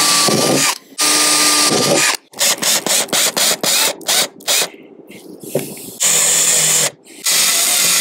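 Cordless drill-driver running in several whirring runs of about a second each, with a quick string of short trigger bursts in the middle, driving self-tapping screws into a vehicle roof.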